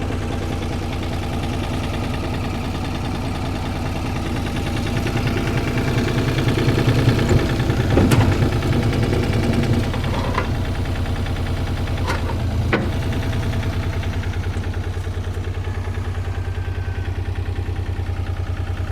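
Komatsu PC28UU mini excavator's small three-cylinder diesel engine running at a steady idle, rising somewhat in the middle, with a few sharp clanks.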